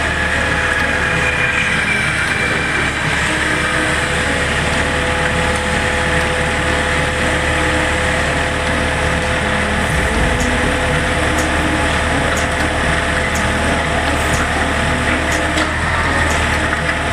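Excavator's Yanmar diesel engine running steadily with a steady whine, powering a hydraulic auger attachment that is boring into the road.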